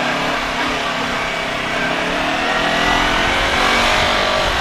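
Motorcycle engine running while filtering through slow traffic, its pitch rising slightly a little past the middle, over a steady rush of wind and road noise.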